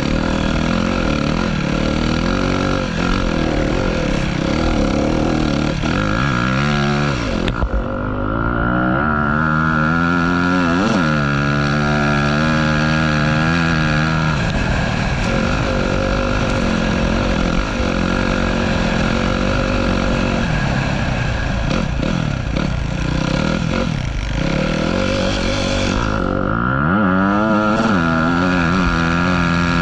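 Dirt bike engine being ridden through snow, revving up and down over and over as the throttle opens and closes and the gears change.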